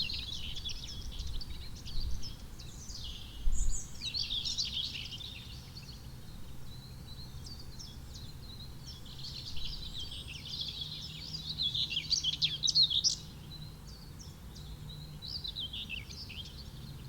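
Common whitethroat singing: short, scratchy, chattering song phrases repeated every few seconds, over a faint steady low drone.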